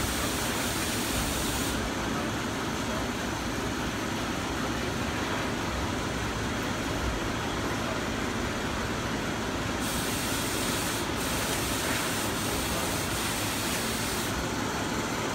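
Steady city background noise, a constant low rumble with no clear pitch, overlaid by a higher hiss that comes in during the first couple of seconds and again from about ten to fourteen seconds in.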